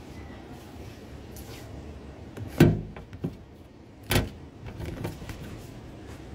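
Phone handling noise: two short, loud bumps as fingers touch and rub the phone near its microphone, about two and a half and four seconds in, over a low steady hum.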